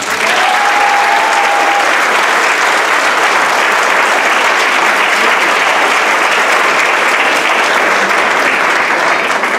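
Audience applauding, loud, dense and steady, as the music stops. A brief held note rises above the clapping near the start.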